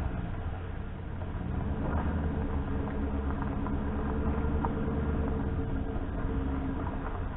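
A motor vehicle's engine running steadily, with faint clicks and rattles over it.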